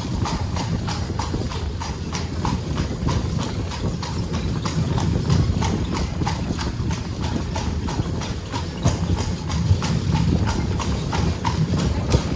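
Carriage horse's hooves clip-clopping at a steady walk on a brick-paved street, about three strikes a second, over the steady low rumble of the carriage rolling.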